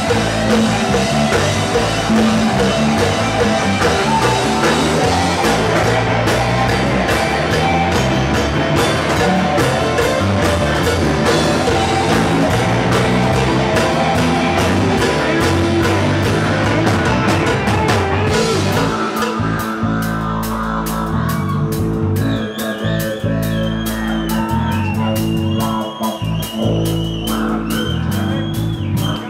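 Live rock band playing an instrumental passage: electric guitars, bass guitar and drum kit with a steady cymbal beat. About nineteen seconds in, the sound thins out to held bass notes with a high wavering guitar tone over the cymbals.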